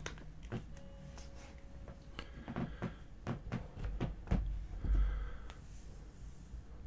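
Large toy figure being handled and laid down on a cutting mat: scattered light clicks and taps, then a couple of heavier thumps about four to five seconds in as it is set down.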